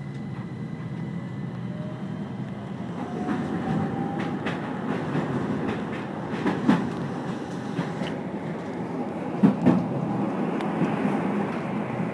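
Keihan Keishin Line electric train heard from on board, pulling away and gathering speed. A faint motor whine rises in pitch over the first seconds, the running noise grows, and several sharp clacks come from the wheels crossing rail joints.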